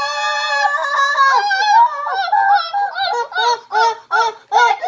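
A child's high-pitched voice holding a long wavering note, then breaking into a run of short repeated sing-song notes, about two or three a second.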